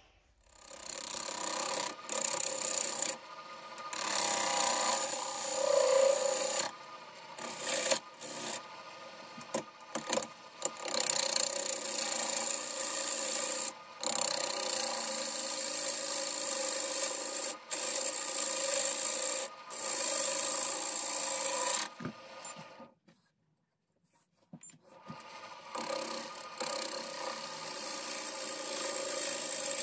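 A turning gouge cutting a dense hardwood bowl blank spinning on a wood lathe: a steady rough scraping hiss. It breaks off briefly several times, with a near-silent stretch of about two seconds about three-quarters through.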